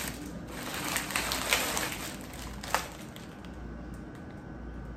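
Plastic cookie packages crinkling and rustling as they are handled, with several sharp crackles over the first couple of seconds, then quieter.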